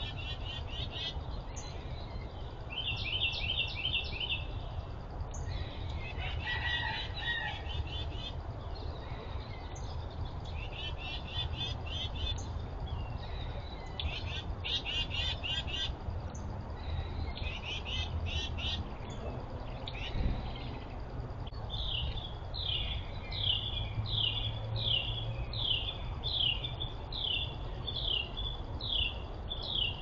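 Wild songbirds singing and calling: several quick trilled phrases through the first half, then a long run of evenly repeated downslurred whistled notes, about one and a half a second, in the last third. A steady low rumble lies underneath.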